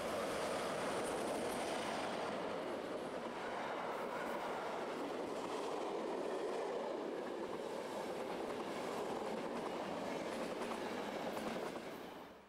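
SBB passenger train passing close by behind an electric locomotive: a steady rushing rumble of coach wheels on the rails. It cuts off suddenly near the end.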